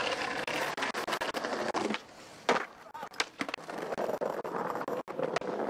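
Skateboard wheels rolling over concrete, with a single sharp clack of the board about two and a half seconds in and a few lighter clicks after it, then rolling again.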